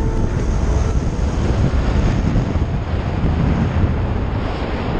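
Wind rushing over the microphone of a camera mounted on an electric motorcycle riding at road speed, with tyre and road noise. It is a steady roar with no engine note standing out.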